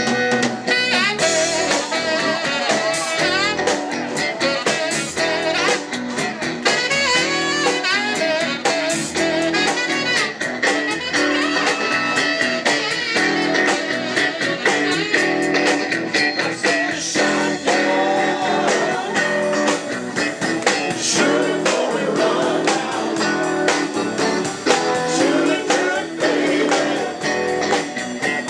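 Live band playing loudly, with singing over electric guitar, bass guitar and drum kit.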